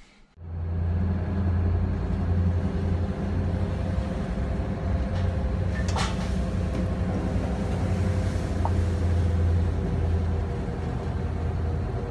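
Steady low drone of a power yacht's engines, heard from inside the pilothouse while under way, with a brief clack about halfway through.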